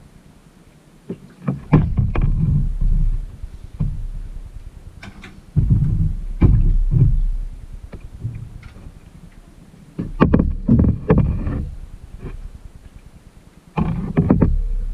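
Kayak paddle strokes dipping and splashing in calm water, a burst of splashing and dripping about every four seconds with a low rumble under each stroke.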